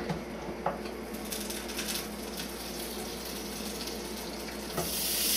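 A hot buttered griddle sizzling faintly and steadily, with a few light clicks. Near the end comes a knock, and the sizzle turns much louder as chilled polenta pieces go onto the griddle to brown.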